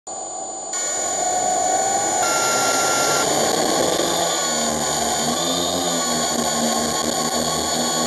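Multirotor drone's electric motors and propellers spinning up and running, a steady high whine over rushing noise heard close up from the camera mounted on the drone. It gets louder about a second in, and the drone lifts off the road in the second half.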